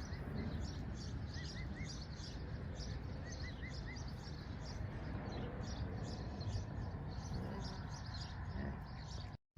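Small birds chirping and twittering throughout over steady low outdoor background noise. One bird gives two runs of three quick rising notes, and the sound drops out briefly near the end.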